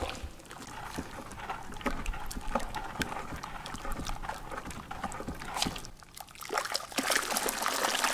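Sulfur and caustic soda solution sloshing and swirling as it is stirred round a plastic tub with a wooden stick to dissolve the sulfur, with many small splashes and knocks. It eases briefly about six seconds in, then the churning grows louder.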